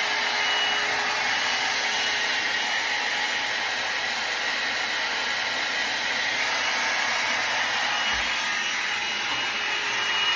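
Hair dryer running steadily on a section of hair curled around a brush, reheating it to set the curl; the steady rush cuts off abruptly at the end.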